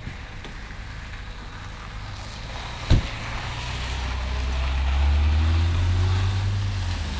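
Car engine on a gravel lot, growing louder with a rising pitch in the second half as a car drives past, with tyres crunching on the gravel. A single sharp thump about three seconds in.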